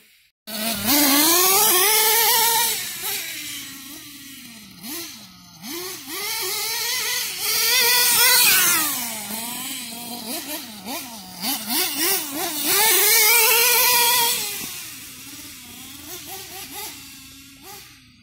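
Losi LST nitro RC monster truck's small glow engine revving as the truck drives, its pitch rising and falling with the throttle. It is loudest in three full-throttle runs, about a second, seven seconds and thirteen seconds in.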